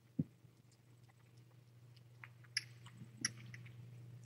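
Faint small clicks and a soft thump near the start over a steady low electrical hum: quiet handling and mouth noises from a kitten being bottle-fed.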